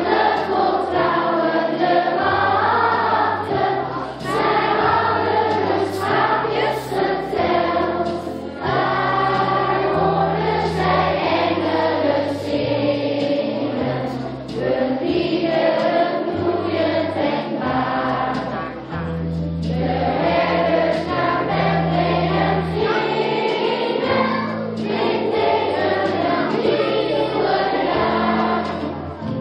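A group of children and adults singing a song together over an instrumental accompaniment, with a bass line stepping between notes. The singing has short breaks between phrases.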